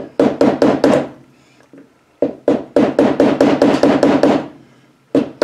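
A yellow-faced mallet rapidly tapping a steel punch, driving a replacement headlight-adjuster fitting into a steel headlight bucket. A quick group of about five taps comes first, then a pause, then a longer run of about five taps a second, and one more tap near the end.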